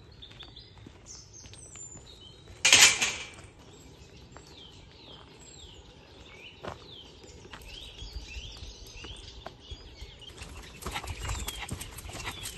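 Wild birds singing, with many short quick chirps and whistles one after another. A single loud, brief noise comes about three seconds in. From about eight seconds, low rumbling and ticking of footsteps and dog paws on a gravel path join in.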